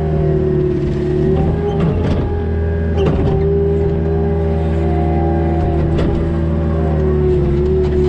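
CASE skid loader's diesel engine running steadily under load while grading dirt, with a whine that dips and rises slightly as the machine works. A few sharp knocks come about 2, 3 and 6 seconds in.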